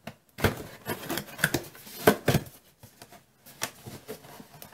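Hands handling a stiff black cardboard box and working at its lid: a string of irregular taps, knocks and scrapes of cardboard.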